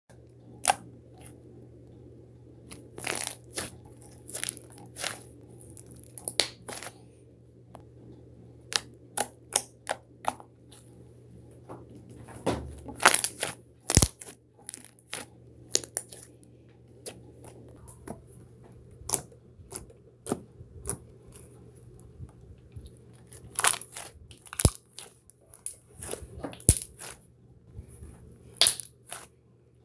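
Slime being squished, poked and pulled by hand on a wooden table, giving irregular short pops and clicks, some in quick runs of several.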